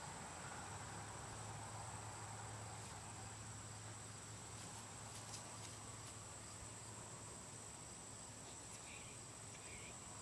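Faint outdoor ambience: insects trilling steadily at a high pitch, over a faint low hum.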